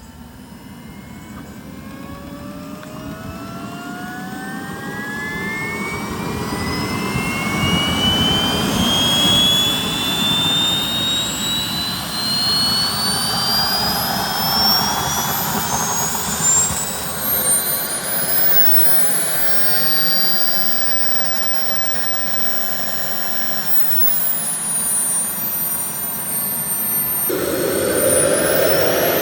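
Jet engines of a giant RC C-17 model spooling up: a high whine rises steadily in pitch and loudness, then holds at a steady run. A louder rush comes in near the end.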